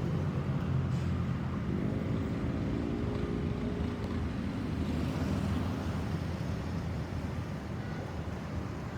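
Road traffic: vehicle engines running with a steady low rumble, and one engine note rising briefly about two seconds in.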